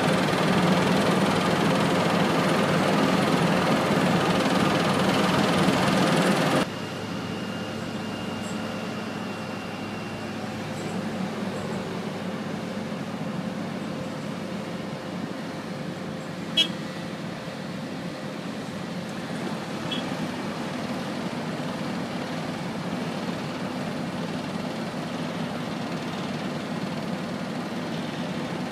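Asphalt paver's diesel engine running steadily, heard close up, then abruptly quieter about six and a half seconds in and continuing as a steady machinery hum of the paving train. A single sharp click sounds about halfway through.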